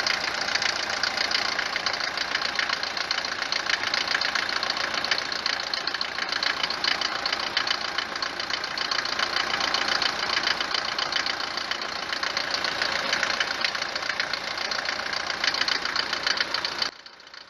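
Mercedes four-cylinder diesel engine idling with a loud, fast, rhythmic knock, cutting off abruptly near the end. The knock is louder than the usual Mercedes diesel clatter, which the mechanic puts down most likely to worn, tapered cylinder walls, with the injector pre-chambers, the injectors or the injection-pump timing as other possible causes.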